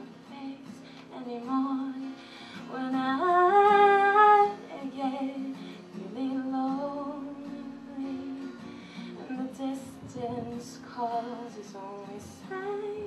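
A woman singing to her own acoustic guitar accompaniment, a slow solo song. Her loudest phrase climbs to a held note about three to four seconds in.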